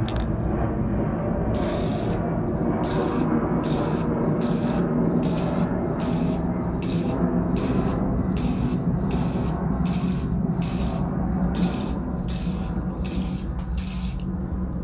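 Aerosol spray paint can hissing in a string of short sprays, nearly two a second, starting about a second and a half in: a pellet gun's barrel being painted in quick passes.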